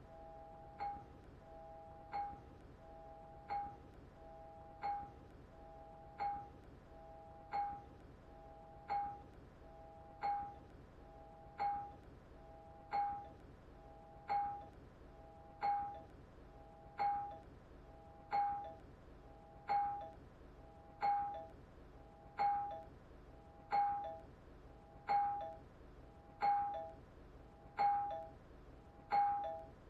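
Doorbell chime ringing its two-note ding-dong over and over, one ring a little under every second and a half, each starting sharply and dying away.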